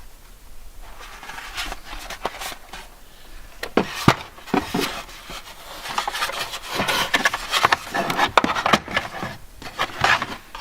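Hard plastic dash trim rubbing and scraping with many sharp clicks, the loudest about four seconds in, as the gauge bezel is handled and its wiring connectors are worked loose.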